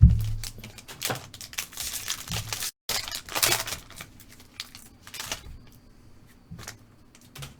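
Crinkling and tearing of a trading-card pack wrapper, with many sharp clicks and taps of cards being handled. The sound cuts out completely for an instant about two and a half seconds in.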